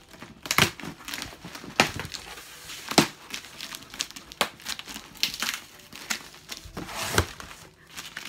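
Brown cardboard packaging being pulled open and crinkled by hand: irregular rustling with sharp cracks now and then, the loudest about half a second, two, three and seven seconds in.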